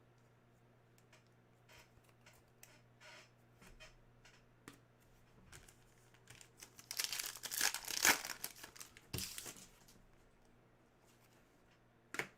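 Trading card pack wrapper being torn open and crinkled. A few light rustles and clicks of handling come first, then a dense burst of tearing and crinkling for about three seconds in the second half.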